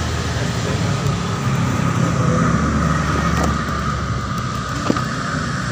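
Steady mechanical drone with a constant thin whine through it, like a running engine or machine, and a couple of faint clicks.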